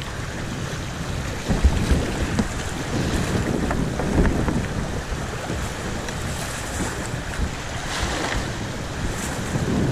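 River water rushing over a shallow, rocky rapid around a moving whitewater kayak, with wind buffeting the microphone. There are a few paddle splashes and knocks, the clearest about eight seconds in.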